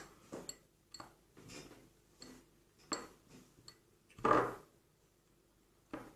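Spoon clinking and scraping against a glass container of homemade soap-and-salt slime, a few scattered taps, with one louder, longer wet noise a little over four seconds in.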